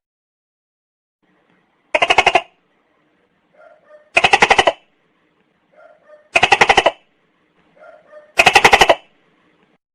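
Tokay gecko calling: four loud, rapidly pulsed calls about two seconds apart, each preceded by a soft short note.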